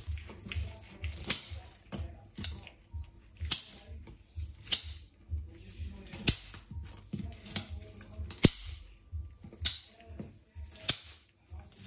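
Sharp cracks, about one a second and unevenly spaced, as a blade cuts through the bones of a large snapper being filleted, over background music with a low, steady beat.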